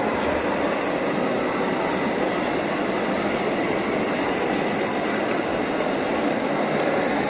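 1/14-scale RC truck running: a steady mechanical noise of its drivetrain and wheels, holding an even level.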